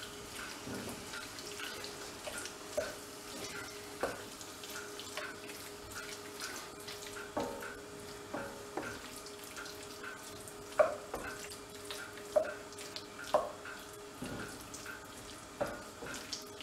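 A spatula stirring raw chicken pieces, onions and curry paste in an enamelled pan, scraping and knocking against the pan at irregular intervals, with the loudest knock about eleven seconds in. Under the stirring runs a steady faint sizzle of the food frying over a low gas flame.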